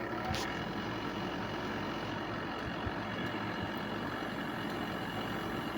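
Sharp 8,500 BTU window air conditioner running just after being switched on: a steady rush of air from its fan, with a single brief click just after the start.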